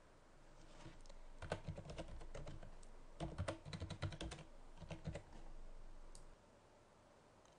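Faint computer keyboard typing: a run of keystrokes, a short pause about three seconds in, then a second, longer run, as a username and then a password are typed into a login form.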